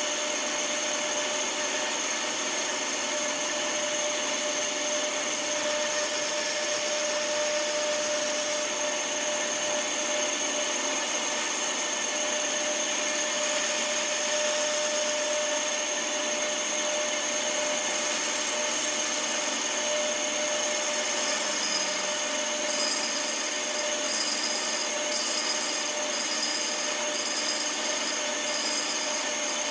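Bandsaw running steadily with a constant motor whine over a wide hiss while its blade cuts notches into a pine pallet board.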